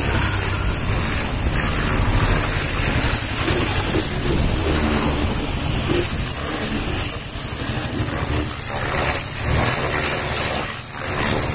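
Pressure washer running: a steady motor hum under the hiss of the high-pressure water jet spraying the vehicle's side panel and wheel.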